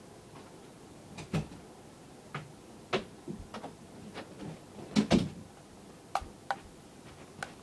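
Irregular knocks and clicks of someone moving about and handling things in a small room, loudest about five seconds in.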